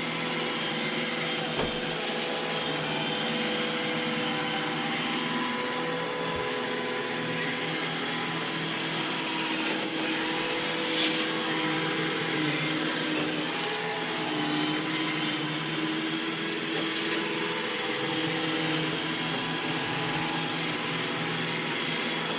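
iRobot Roomba E6 robot vacuum running steadily through its cleaning run: a constant motor hum and whine, with a few lower tones wavering in pitch and a few light knocks.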